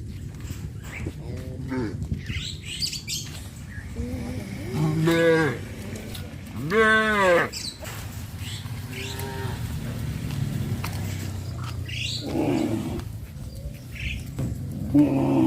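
Several cattle mooing, one call after another every few seconds; the loudest is a long moo that rises and falls about seven seconds in. A steady low hum runs underneath.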